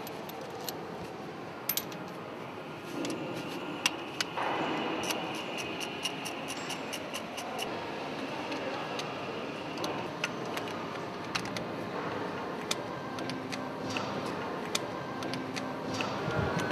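Scattered light metallic clicks and clinks of a hand wrench and loosened bolts being worked on a MaK marine diesel engine's cylinder-head fittings, irregular and unhurried over a low steady background.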